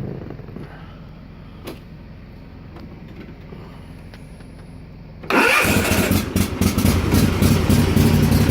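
The Kawasaki V-twin engine of a Toro TimeCutter mower starts abruptly about five seconds in and keeps running steadily. It is being jump-started from a portable jump box because the battery is dead. Before the start there is only a low background and one faint click.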